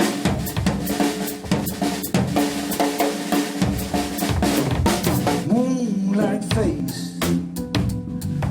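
Live band playing an instrumental passage with the drum kit to the fore: rapid snare and bass drum hits over held keyboard and bass notes, with a bending melodic line rising and falling about halfway through.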